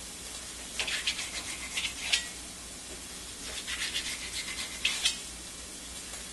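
A large kitchen knife sawing through a raw hake fillet and scraping on the cutting board in a few short strokes, about a second apart. Behind it runs the faint steady sizzle of onions frying in olive oil.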